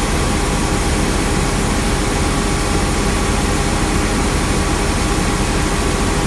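Johnston street sweeper running steadily at working revs, a constant engine and machinery drone with a low rumble, heard from inside the cab.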